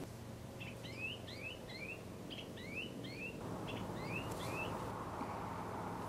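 Ringed plovers calling: a run of about eight short rising whistled notes, each led by a brief higher note, over a steady background hiss that grows stronger about halfway through.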